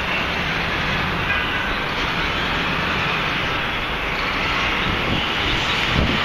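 Steady traffic noise from a busy multi-lane street.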